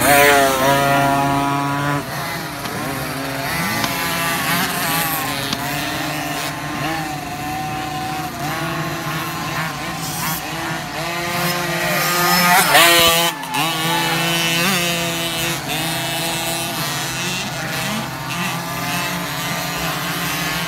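Several 50cc two-stroke motocross bikes racing, their engines revving high and dropping again as riders accelerate and shift. The revving is loudest at the start and again about twelve seconds in.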